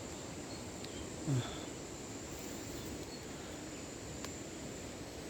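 Steady high-pitched insect drone, cricket-like, with a brief low falling voice-like sound about a second in.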